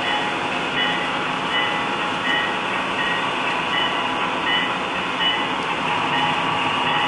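HO-scale model locomotives running on the layout: a steady, dense running noise with a short bell-like tone repeating about every three-quarters of a second. Under it is the steady noise of a home air-conditioning blower.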